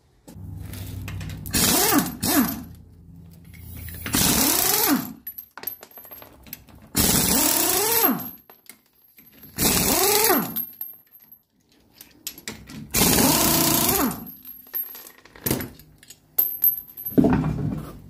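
Air impact wrench spinning off a car wheel's lug nuts in about six short bursts, each rising and then falling in pitch as the trigger is squeezed and let go.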